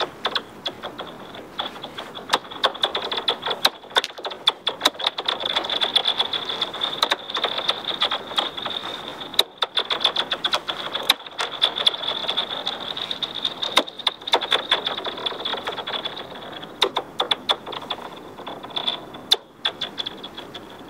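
Rocks bouncing and skittering on thin ice: a rapid, uneven run of sharp clicks over a high, ringing whine that grows in the middle and fades out near the end. The thin ice sheet turns the impacts into zinging, blaster-like sounds.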